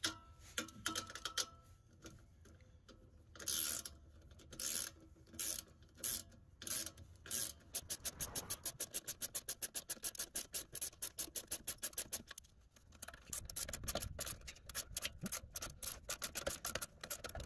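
Ratchet wrench clicking as a nut is run down on a rear sway bar bolt. First come a few separate bursts of clicks, then from about eight seconds in a fast, even run of clicks, about five a second.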